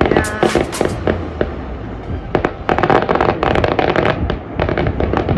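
A fireworks display: a quick, irregular run of bangs and crackling pops from bursting shells, thickest in the middle.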